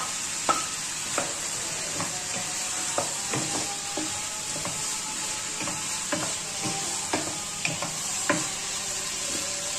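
Wooden spatula stirring fried okra and onions in a hot kadhai, with irregular scrapes and knocks against the pan, about one or two a second, over a steady sizzle of frying.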